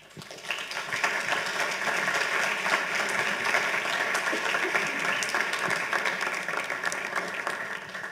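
Audience applauding, starting about half a second in and keeping up steadily.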